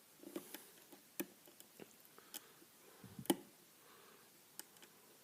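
Faint, irregular clicks of a lock pick working the pins of a pin-tumbler lock held under a tension wrench, the loudest about three seconds in. The lock has security pins that give counter-rotation and click as pins are lifted and set.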